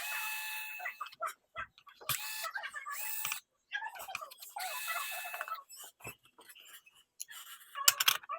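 Fast-forwarded sound of a console being put back together: three bursts of a high, steady whine, each about a second long, in the first half, then quick clicks and taps of parts and screws, with a few louder clicks near the end.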